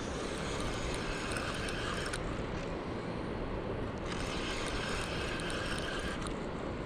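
Spinning reel being cranked to bring in a hooked catfish, in two spells of about two seconds each with a short pause between: the reel's gears whir and tick as the line comes in. A steady rush of wind and moving water runs underneath.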